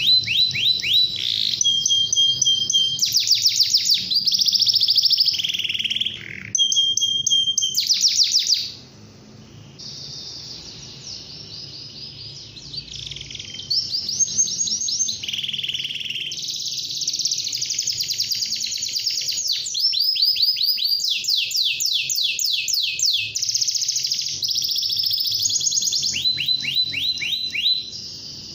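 Domestic canary singing a long song of fast, rattling trills and rolls, each phrase a quick run of repeated high notes. It drops to a quieter passage about a third of the way through, then returns to full song.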